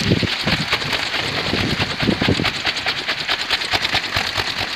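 Kolecer, a Sundanese wooden wind propeller on a tall bamboo pole, spinning in the wind with a rapid, even pulsing whir. This is the rumbling blade sound its owners liken to thunder.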